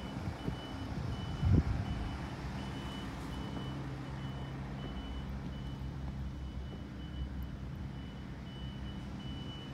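A vehicle's reversing alarm beeping steadily, one high beep about every three-quarters of a second, over a diesel truck engine running. A brief low thump about a second and a half in is the loudest moment.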